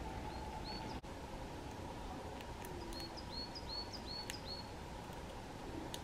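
A small songbird calling in repeated short, high notes: two near the start, then a quicker run of about six a little past the middle. A steady low background rush runs underneath.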